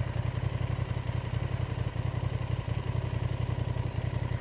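Honda Transalp's twin-cylinder engine running steadily at low revs, an even low pulsing rumble.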